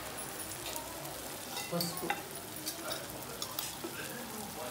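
Onion and tomato masala sizzling in oil in a frying pan, a steady soft hiss broken by many small pops and crackles.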